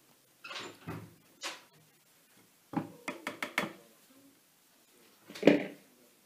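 Kitchen handling noises from filling a bread-maker pan on a wooden worktop: a few scrapes and a quick run of clicks and knocks from plastic and metal being handled, the loudest a single thump near the end.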